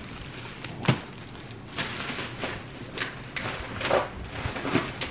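Snack packages and boxes being handled and set down: a sharp thump about a second in, then several lighter knocks and rustles.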